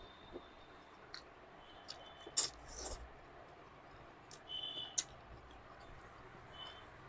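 Eating sounds from a mouth close to the microphone: scattered sharp mouth clicks and brief chewing noises, loudest about two and a half seconds in, with another short cluster around five seconds.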